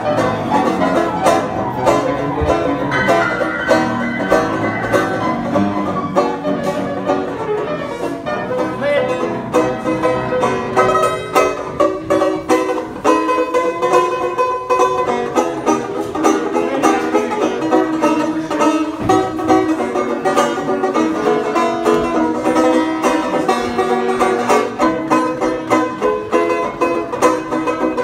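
Banjo and upright piano playing a tune together. About halfway through, the piano stops while the banjo keeps playing.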